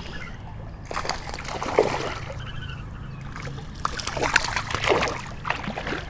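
Water splashing in irregular bursts as a hooked smallmouth bass fights at the surface while being reeled in, with sharp splashes about a second in and a busier spell around four to five seconds in.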